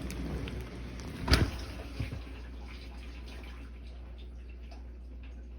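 A sharp knock about a second in and a lighter one near two seconds, with faint ticks, as plastic dishwasher sump parts are handled, over a steady low hum.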